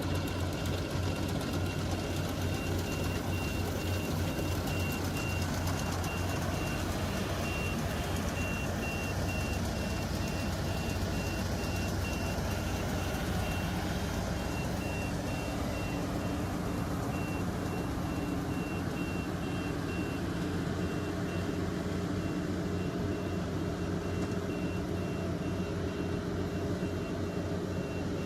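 Rice harvesting machine's engine running steadily while a high-pitched reversing alarm beeps over and over, the sign that the machine is backing up. The engine note shifts about halfway through.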